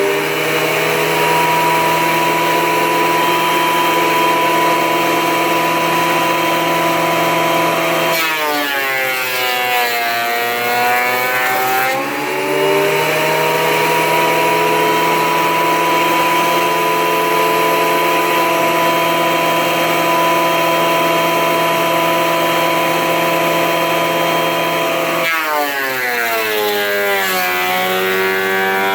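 Porter-Cable portable thickness planer running with a steady high motor whine. Its pitch sags twice as the cutterhead bites into a board and the motor takes the load, about eight seconds in and again near the end, climbing back once the board clears.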